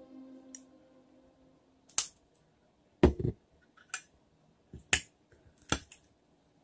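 Cutlery and dishes knocking: about six sharp clicks and knocks of knife, fork, plate and baking pan, the loudest about three seconds in.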